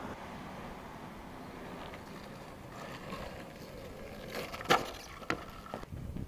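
A longboard on soft 83a urethane wheels rolls over asphalt with a steady hiss, then the board slaps down with one loud clack a little past halfway and two smaller knocks after it, the landing of a backside shuvit.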